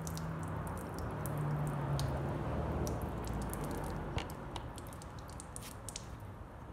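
Water pushed by a pressurized garden sprayer through a Suzuki DF6 outboard's flush port, splashing and dripping out of the lower unit's pickup screen and the telltale. It fades about four seconds in, leaving scattered small clicks of handling.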